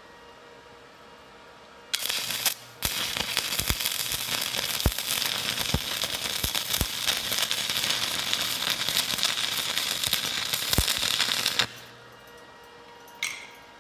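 Stick-welding arc of a 308 stainless rod laying a bead: a steady crackling that starts about two seconds in, drops out briefly and restrikes, then runs for about nine seconds before cutting off. The crackling is the sign of a good weld. A single short click near the end.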